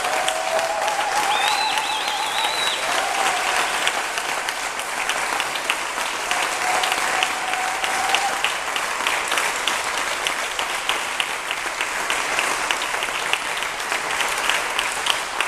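Audience applauding steadily, with a few whistles and cheering voices over it in the first few seconds.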